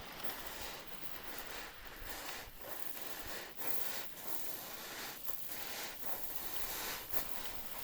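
Ocean waves washing on a shore: a steady, airy hiss of surf with small rises and dips in level.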